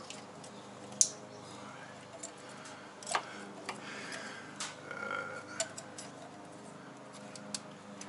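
Plastic connector plugs of a coil pack wiring loom being pushed onto the RB25DET's ignition coil packs: about six sharp clicks, a second or so apart, over a steady low hum.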